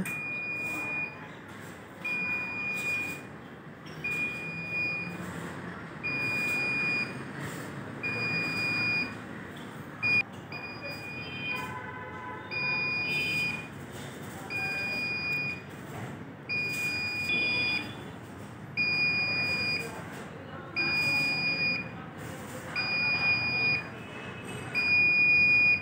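Warning buzzer on a hydraulic scissor lift beeping a steady high tone about once every two seconds, each beep lasting about a second. It is the lift's travel-warning buzzer, sounding while the platform comes down from full height.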